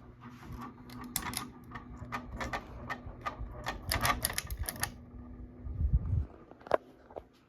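Hampton Bay Littleton ceiling fan running with a steady low motor hum and bursts of rapid, irregular clicking, fan noise that new blade set screws have reduced but not removed. There is a low rumble and one more click near the end.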